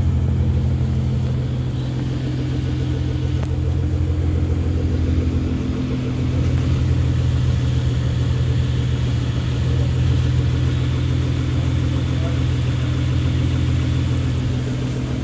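Nissan GT-R R35's twin-turbo V6 idling steadily through a straight-piped Armytrix titanium valvetronic exhaust, a low, even rumble with no revving.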